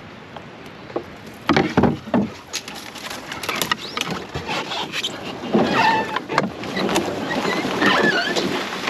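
Canoe being walked through the canal: a few hollow knocks from the hull about a second and a half in, then a run of scraping, rustling and splashing as it is moved through brush and water.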